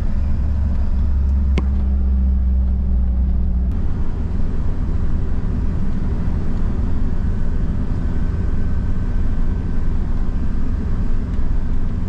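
A vehicle driving along a paved road, heard from inside the cab: a steady engine and tyre rumble. There is a single click about a second and a half in.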